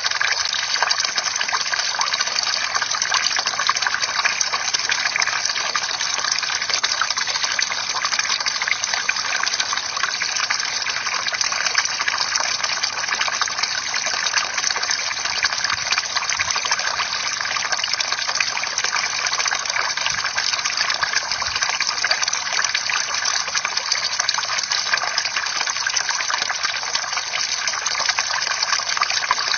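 Bamboo water fountain: a steady stream of water pouring and splashing into a pool, with many small drips and plinks, unchanging throughout.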